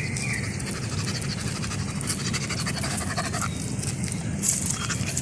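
Golden retriever puppy panting quickly and steadily, worn out and thirsty, over a steady low rumble.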